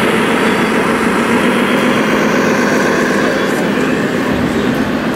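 Engine sound from a radio-controlled Scania truck model's sound module, a steady, even diesel hum, with the murmur of a crowded hall under it.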